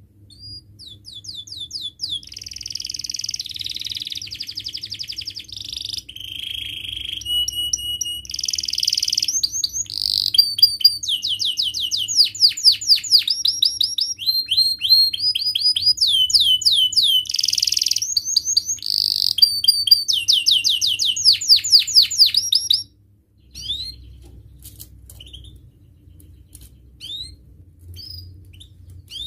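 Domestic canary singing a long song of fast rolling trills and rapid repeated notes with quick pitch glides. The song stops abruptly about 23 seconds in, leaving only a few short, scattered chirps.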